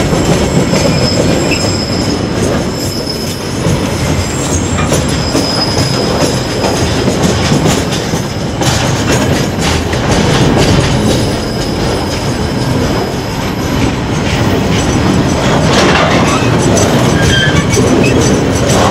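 Container wagons of a freight train rolling past: a steady rumble of steel wheels on rail, with knocks over the rail joints and a faint high wheel squeal that comes and goes in the first few seconds.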